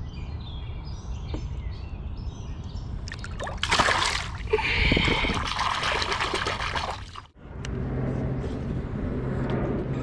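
Water splashing and sloshing at the side of a boat as a largemouth bass is released by hand and kicks away. The splashing is loud for a few seconds and cuts off abruptly.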